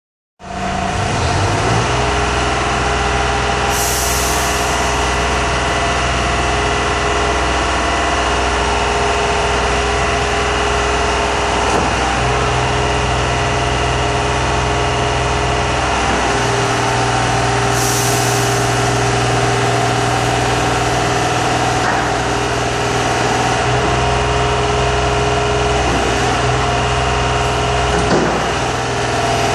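Hydraulics of a sideloader trailer running steadily under power while its extendable rear chassis section slides out and back by remote: a continuous engine-and-pump hum whose low tone cuts in and out a few times. Two short air hisses about 4 and 18 seconds in.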